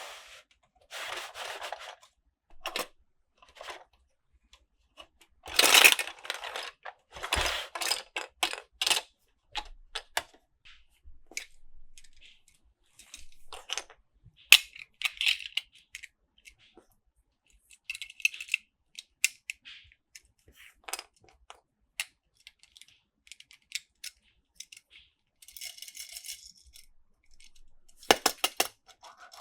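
Small plastic and die-cast toys clicking and clattering in short, irregular bursts, with brief rattles between quiet gaps.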